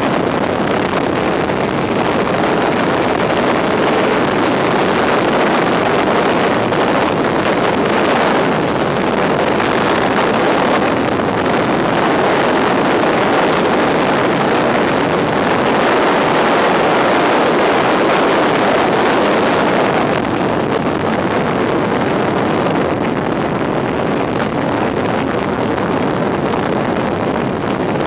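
Suzuki GSX-R sport bike running at speed, its inline-four engine under a steady rush of wind on the bike-mounted microphone. The roar eases a little about two-thirds of the way through.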